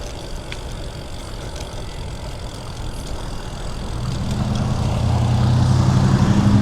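Bicycle riding noise with wind on the microphone, then from about four seconds in the steady, low hum of a motor engine that grows louder as it comes close.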